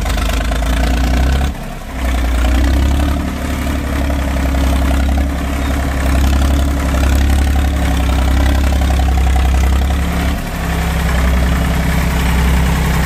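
Eicher 485 tractor's three-cylinder diesel engine running steadily at low speed while hauling a trolley loaded with logs, with two brief dips in level, about a second and a half in and again near ten seconds.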